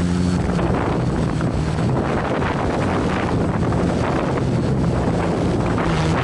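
Quadcopter's electric motors and propellers humming in a hover, recorded on board, with strong wind buffeting the microphone. The motor hum wavers in pitch as the flight controller holds position against the gusts.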